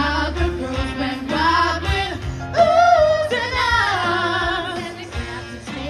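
Amplified pop music with a woman singing over a steady bass beat through a PA system, the voice holding a loud high note around the middle.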